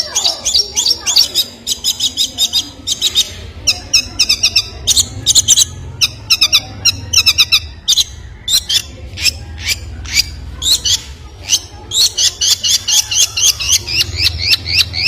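A small bird chirping in quick runs of short, sharp high notes, many a second, with brief gaps between the runs. A steady low hum lies underneath.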